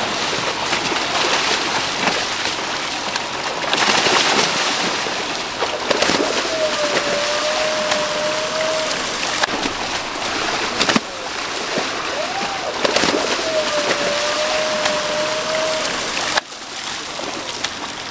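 Heavy splashing and churning water as groupers thrash inside a seine net being drawn tight in a farm pond. A steady whistle sounds twice over it, each lasting a couple of seconds, and the splashing drops off sharply near the end.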